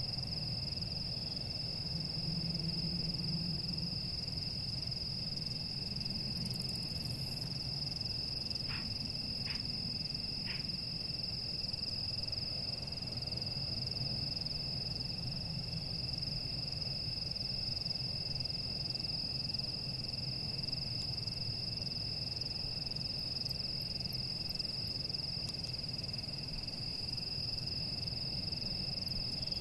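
A steady high-pitched tone, with a weaker second tone below it and a low hum underneath; three faint ticks come about nine to ten seconds in.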